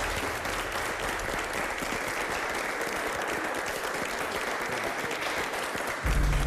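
A group of people applauding, a steady wash of clapping, with music starting up near the end.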